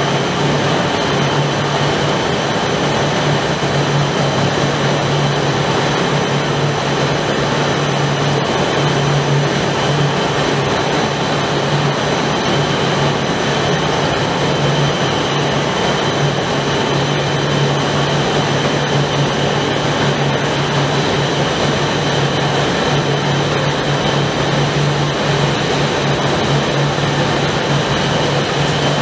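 Three-layer blown film extrusion line running: an even rushing machine noise with a steady low hum and a few thin, steady high whines over it.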